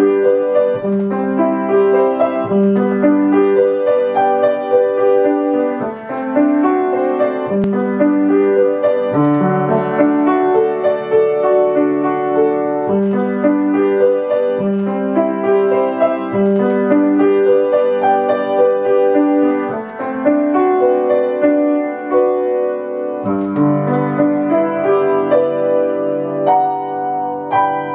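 Grand piano played solo: a melody over held lower notes, with the bass moving lower about 23 seconds in.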